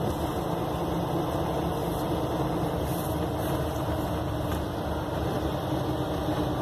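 Single-deck bus's diesel engine running steadily, heard from inside the passenger saloon as an even drone.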